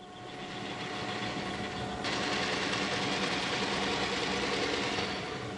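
Kearney & Trecker 2HL horizontal milling machine running as its power feed traverses the table, a steady mechanical whir with a gear hum that gets louder and brighter about two seconds in.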